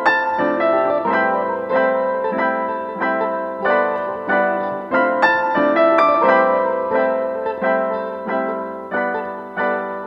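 Background piano music: notes struck at an unhurried pace, about two a second, each ringing and fading.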